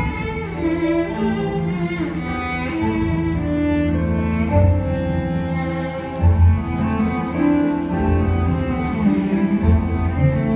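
Live chamber music led by a cello playing slow, sustained bowed notes, with other instruments of the small ensemble underneath.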